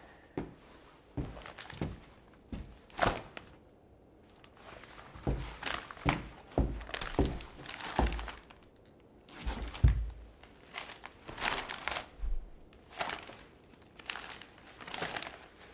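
Irregular soft knocks and rustles of a glossy magazine being handled and its pages turned, with the shuffling of men leaning in close; about twenty short sounds, unevenly spaced.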